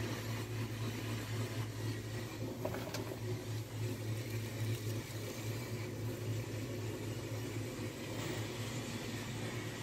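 A steady low hum, like a running fan or appliance motor, under faint room noise, with a few faint light ticks about three seconds in.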